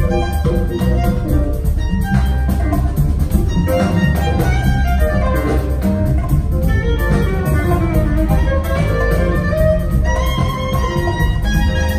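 A live band playing in a concert hall, recorded from the audience: drums and bass under sustained melodic lines, some gliding in pitch, at a steady loud level.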